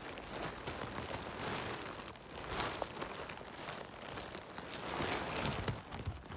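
Close rustling and light crackling of grass and forest litter as chanterelle mushrooms are picked by hand, the noise swelling and fading unevenly.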